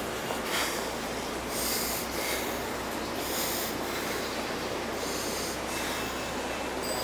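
Subway station platform ambience: a steady rumble and hiss, with short bursts of hiss every second or two.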